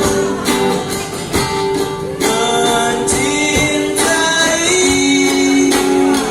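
Pop song music with guitar and held sung notes, between lyric lines.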